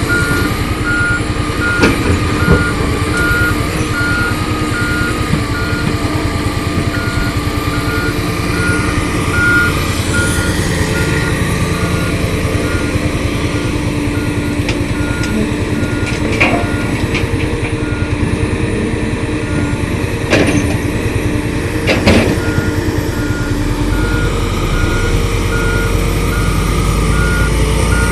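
Heavy construction machinery working: a back-up alarm beeps steadily, pausing for a few seconds early on, over the steady drone of a diesel engine, with several sharp knocks.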